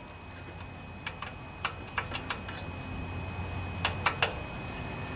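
Light metallic clicks and ticks in small clusters, about a second in, around two seconds and again near four seconds, from tools and small parts worked against a stuck washer on a lawnmower electric starter motor shaft.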